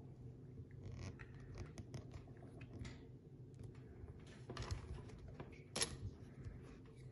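Faint, scattered metallic clicks and scratches of a hook pick working the pins inside a Vito Security 40 mm brass pin-tumbler padlock held under heavy tension, with a small cluster of clicks past the middle and one sharper click about six seconds in.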